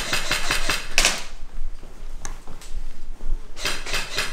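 Rapid bursts of airsoft gunfire, about ten sharp clicks a second: one burst lasting about a second at the start, another near the end, with a few single snaps between.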